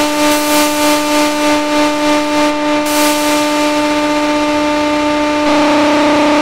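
Mode Machines SL1 Synthlab analog synthesizer holding one steady, overtone-rich note while its knobs are turned. The note's loudness pulses about three times a second at first, then the pulsing fades out; near the end the tone steps up louder and brighter.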